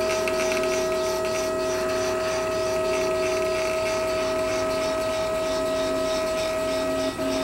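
3D printer's stepper motors whining steadily with several fixed tones as the print head moves across the bed, printing. The whine briefly dips and shifts about seven seconds in.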